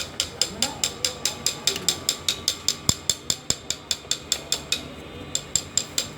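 Rapid, evenly spaced mechanical clicking, about six or seven clicks a second, with two dull knocks about halfway through.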